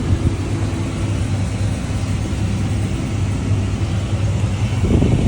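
Combine harvester running while it cuts corn: a steady engine and machinery hum, with a brief louder surge near the end.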